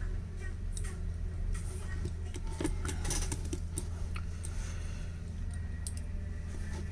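Scattered light clicks and small metallic taps of tools and parts being handled while a smartphone is reassembled, over a steady low hum.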